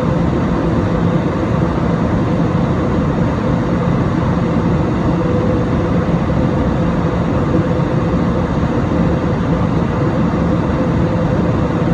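Steady in-flight cabin noise of an Airbus A320-216 heard from a window seat over the wing: the CFM56 turbofans' drone under the rush of airflow, with a constant low hum and a constant higher tone.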